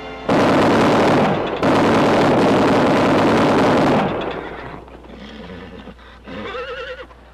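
Gatling gun firing in two long rapid bursts, the first about a second long and the second about two and a half seconds, then dying away. A short wavering cry follows near the end.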